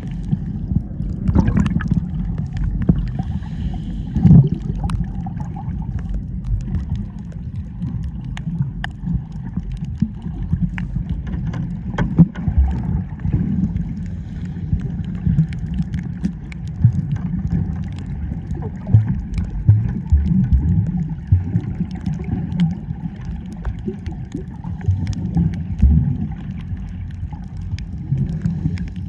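Water sloshing and gurgling, muffled and low, with many scattered faint clicks.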